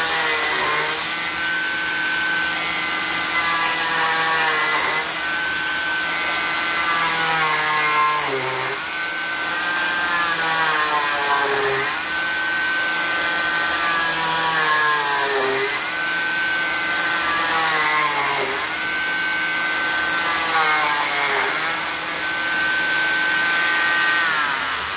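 Oscillating 940 cast saw running on low speed, cutting a fiberglass arm cast by the in-and-out method. Its steady whine sags in pitch each time the blade is pressed into the fiberglass and springs back as it is drawn out, about every three to four seconds.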